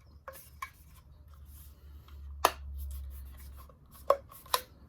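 Sharp plastic clicks and knocks from handling a length of white PVC trunking and its clip-on lid, the strongest about halfway through and two more near the end, over a steady low hum.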